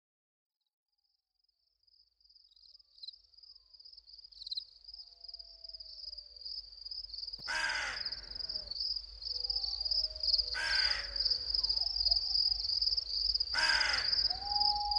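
Morning ambience fading in from silence: a steady high insect trill, with a crow cawing three times about three seconds apart.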